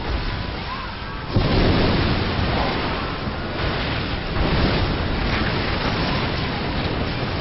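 Sea surf: waves breaking and washing in a continuous rush, growing suddenly louder about a second and a half in and swelling again near the middle.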